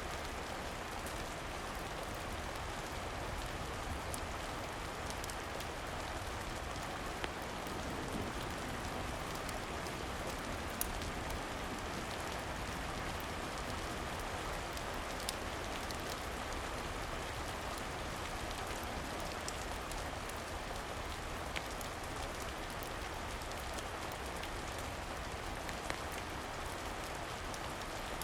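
Steady rain falling, an even patter, with a few sharp clicks scattered through it.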